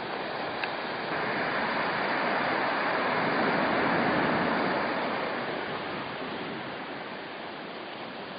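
Sea surf washing on the shore: a steady rush of noise that swells for a few seconds midway and then eases off.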